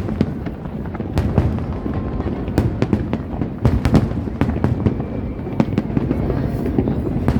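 Fireworks display going off: a rapid, irregular series of sharp bangs and crackles, several a second, over a steady low rumble of shell bursts.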